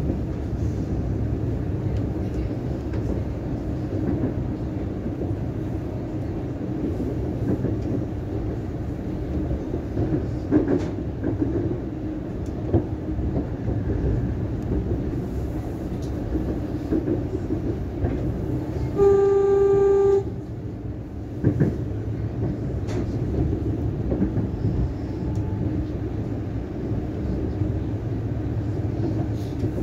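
Siemens Nexas electric train running, a steady rumble of wheels and motors heard from on board. About two-thirds of the way through, a train horn sounds once for about a second as one steady tone, the loudest thing here, and a single knock follows shortly after.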